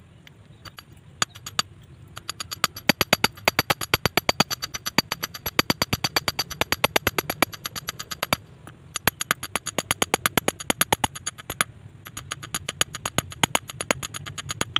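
Claw hammer tapping a wire against a stone, a rapid run of light, sharp strikes about five a second, with two short pauses. The wire is being beaten into shape for an eel hook.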